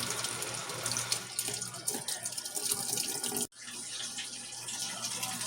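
Water running into a Giantex portable washing machine as it fills at the start of a wash cycle, fed by hose from a sink faucet, with a steady low hum underneath. The sound breaks off for an instant about three and a half seconds in, then carries on.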